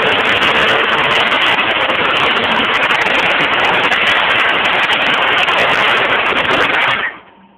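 Chevrolet Cavalier Z24's 3.1 V6, an engine with a knocking rod, running loud and hard at wide-open throttle, then cutting off suddenly near the end.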